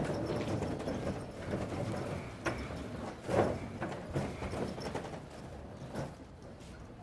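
Metal hand cart rattling and clattering as it is wheeled over paving, with sharp knocks now and then; the rattle grows fainter as the cart moves away.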